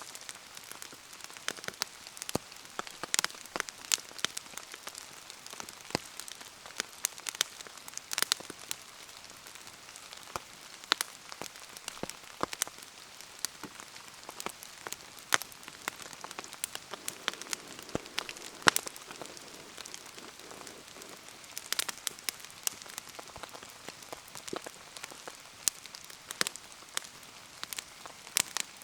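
Steady rain pattering, with a wood bonfire burning in it. Many sharp ticks and pops come at irregular moments throughout, from drops striking and the fire crackling.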